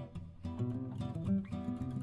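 Background music played on acoustic guitar, strummed and plucked, with notes that change several times a second.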